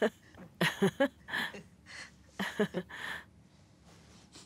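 A voice in several short, quiet bursts over the first three seconds, like low untranscribed speech or murmured vocal sounds, then faint room tone.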